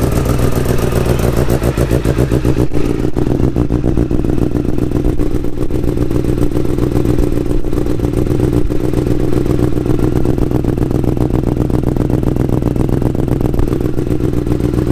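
An engine running at a steady speed with an even, fast pulse and no revving.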